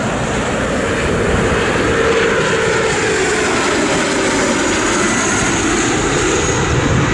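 Mitsubishi (Bombardier) CRJ-900 regional jet on landing approach flying low past, its two rear-mounted General Electric CF34 turbofans running. A steady, loud jet noise, with a tone that slowly falls in pitch as it goes by.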